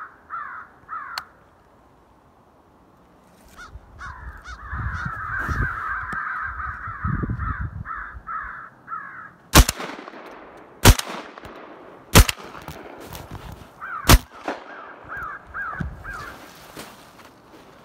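Crow caws from an electronic crow call, in fast runs of repeated caws, broken by four shotgun shots a little over a second apart about two-thirds of the way through; the shots are the loudest sounds, and the caws resume after the last one.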